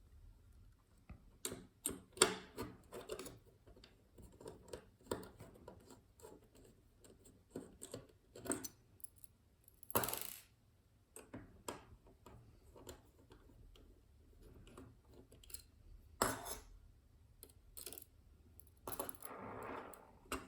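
Irregular clicks, taps and clatter of small hard parts and tools being handled, with a few louder sharp knocks and a short scraping rustle near the end.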